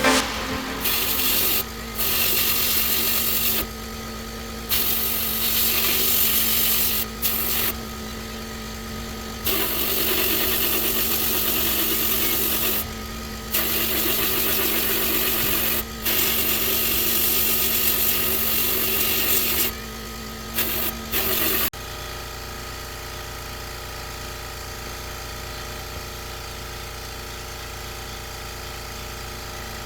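A machine hums steadily while a loud hiss cuts in and out abruptly several times; from about two-thirds of the way through only the quieter steady hum remains.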